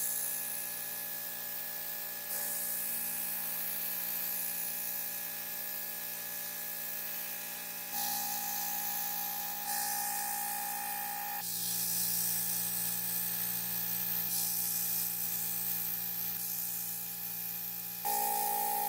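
Steady spraying hiss over the steady hum of a small motor, shifting abruptly in tone several times.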